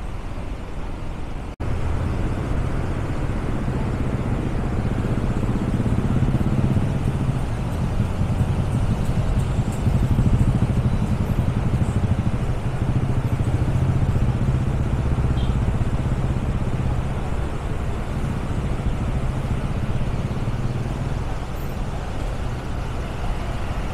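Road traffic running steadily: car engines idling and creeping in a slow queue, with a motorcycle among them, giving a continuous low rumble. The sound drops out for an instant about one and a half seconds in.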